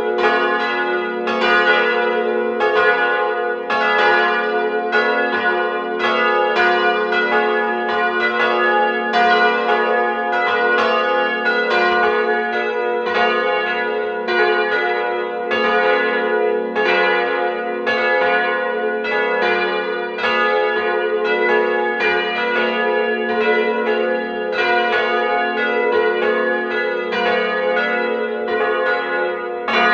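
Church bells cast by Ulrich & Weule of Apolda, swinging and ringing together in a continuous peal that calls to a church service. Their strokes overlap a few times a second, each leaving a long ringing hum.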